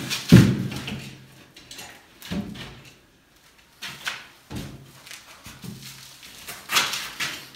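Knocks, bumps and scraping from a sheet of gypsum drywall being handled and pushed into place against a wall, with a sharp knock about half a second in and scattered lighter bumps later.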